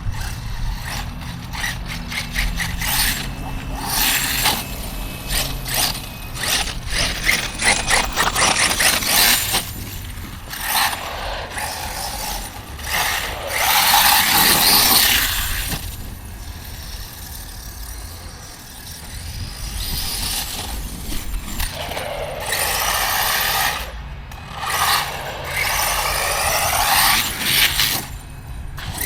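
Electric-powered RC truck being driven hard: its motor whines up and down in pitch while the tyres scrape and crackle over loose ground, in repeated passes.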